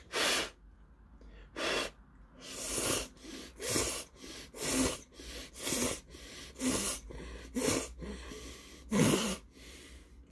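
A man slurping noodles from a bowl of seafood jjamppong: about ten loud, airy slurps in quick succession, each under a second, the loudest about nine seconds in.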